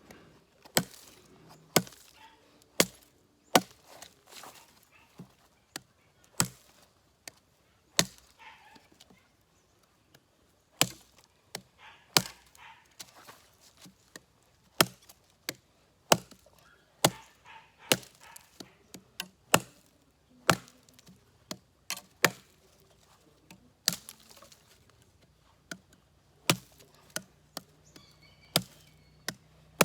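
Cold Steel Rajah II large folding knife chopping into dry wood: sharp, separate blows at about one a second, broken twice by pauses of two to three seconds.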